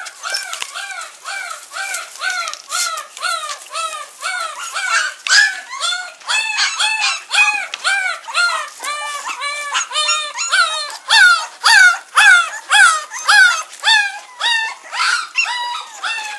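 Young puppies crying: a steady run of high-pitched yelping cries, each rising then falling, about three a second, from several pups at once and loudest in the second half.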